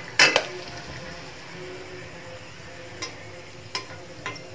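A slotted steel spatula clinks against a steel pan while fried puris are scooped out of hot oil, which sizzles faintly and steadily underneath. The loudest clink comes just after the start, and a few lighter taps follow near the end.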